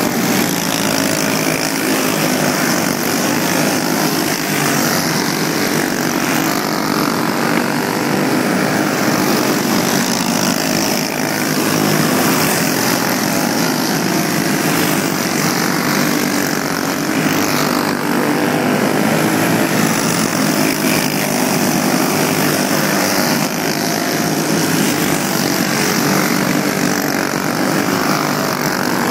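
A pack of racing karts with stock Briggs & Stratton Animal single-cylinder four-stroke engines, running flat out together at racing speed. It is a continuous, loud buzz of several engines at once, the pitch wavering up and down as karts pass and lift for the turns.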